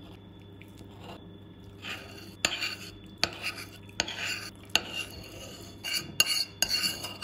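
Metal cutlery, first a fork and then a spoon, clinking and scraping against a plate as it picks up soft cake and scrapes up the leftover cream. The sharp clinks and scrapes start about two seconds in and come several times.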